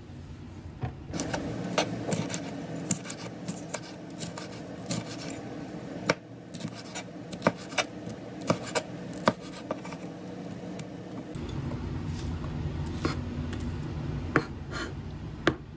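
Kitchen knife slicing a yellow bell pepper into thin strips on a cutting board: irregular light knocks of the blade against the board.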